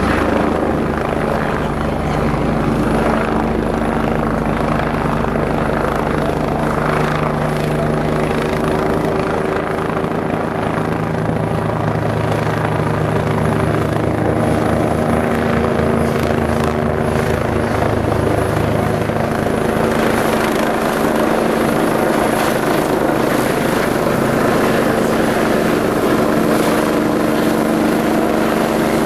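Sightseeing helicopter flying close by: a loud, steady rotor beat over an engine drone, its pitch shifting somewhat midway as it manoeuvres.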